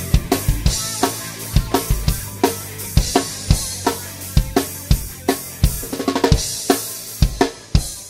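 Drum kit played in a steady groove: kick drum, a 10-inch by 5½-inch snare built from a cardboard Quik-Tube shell with birch end caps, hi-hat and cymbals. There is a quick run of strokes a little after six seconds in, and the sound fades out near the end.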